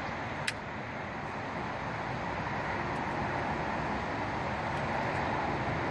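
Steady background noise like distant road traffic, with one sharp click about half a second in.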